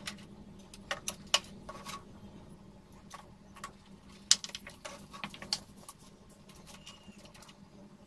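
Irregular sharp clicks and knocks of hand tools and plastic parts as the fan motor is fastened into an air conditioner's indoor unit, a cluster in the first two seconds and another around four to five seconds in, over a faint steady hum.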